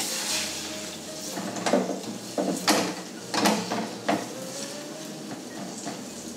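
Grated potato batter sizzling in hot oil in a nonstick frying pan, with a spoon knocking and scraping against the pan about six times between about one and a half and four seconds in.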